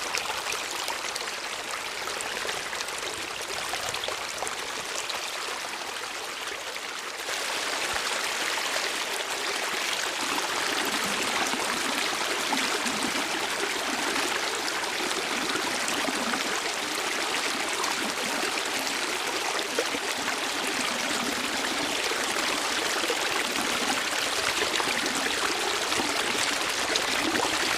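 Waterfall: a steady rush of falling water that jumps suddenly louder and fuller about seven seconds in, then holds steady.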